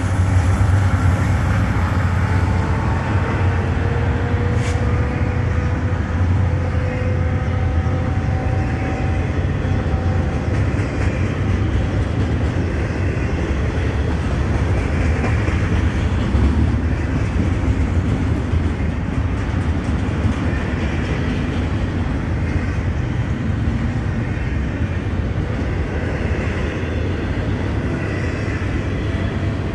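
Double-stack intermodal freight cars rolling past on the rails: a steady, loud rumble of steel wheels on track.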